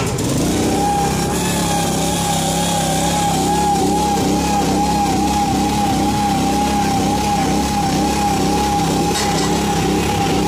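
Japa 235 firewood processor's combustion engine running steadily, with a strong, steady high whine over the low engine note.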